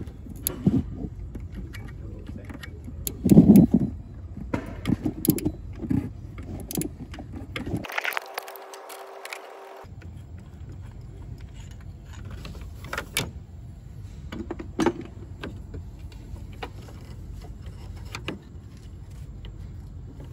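Metal hand tools clinking and knocking against the engine as the timing belt idler pulley bolt is undone with a 16 mm socket and the idler pulley slid out. The clicks are scattered and irregular, with one louder thud early on.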